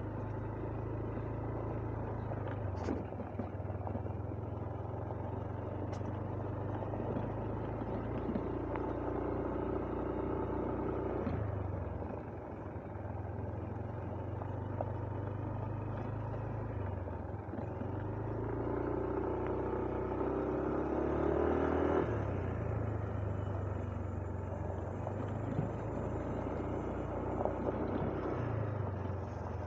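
Motorcycle engine running while riding along a road, a continuous drone whose pitch steps up and down several times, climbing to its loudest about twenty seconds in.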